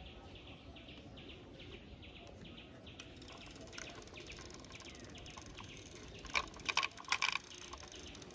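Faint background chirping of birds, a steady run of short high chirps about three a second. A handful of louder, sharper short sounds come together about six to seven seconds in.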